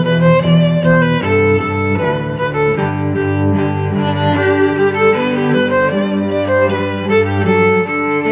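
Background music: bowed string instruments, violin with cello, playing a melody over held low notes.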